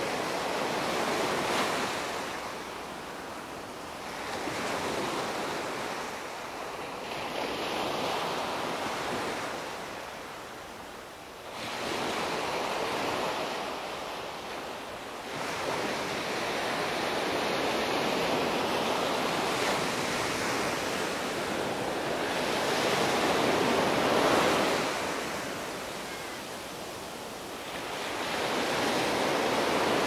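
Small sea waves breaking on a sandy beach and washing up the shore. The surf swells and fades every few seconds.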